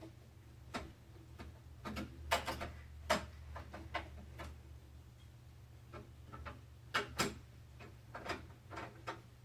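Scattered light clicks and taps of hands handling computer parts, a dozen or so irregular ticks with louder pairs about two seconds in and about seven seconds in, over a faint low steady hum.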